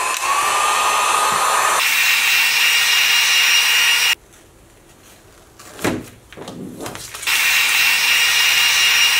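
Warrior heat gun running: a steady blowing hiss with a whine that rises as the fan spins up, then jumps to a higher whine about two seconds in. It cuts off about four seconds in, leaving only a few soft handling noises, and comes back on a little after seven seconds.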